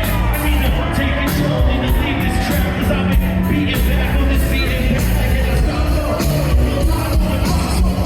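A live band playing a full-band song: drums hitting steadily over a heavy bass line and guitars, with singing on top.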